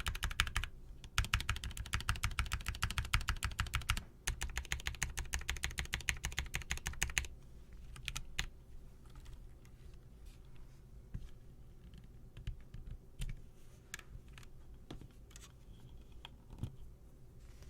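Fast typing on a custom mechanical keyboard, dense rapid keystrokes in runs with two short breaks. After about seven seconds it thins to scattered single clicks.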